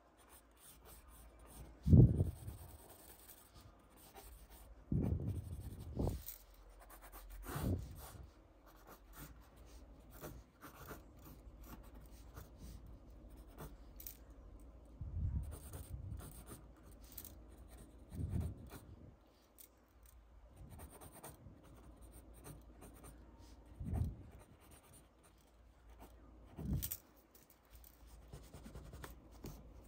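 Mechanical pencil scratching over drawing paper in short sketching strokes, with several louder soft thumps scattered through as the pencil and hand press on the sheet; the loudest comes about two seconds in.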